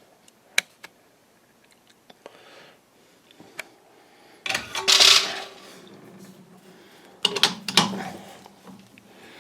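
Metal clicks and clanks from a chuck key working the jaws of a six-jaw lathe chuck as a test bar is taken out, with a louder scraping rush about halfway through and a few knocks near the end.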